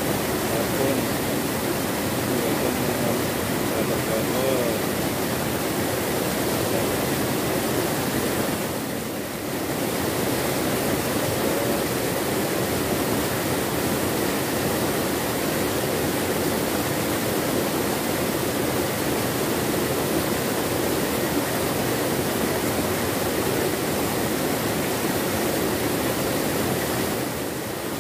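Small river waterfall pouring over a low rock ledge into a shallow pool: a steady rush of falling water that softens briefly about a third of the way in.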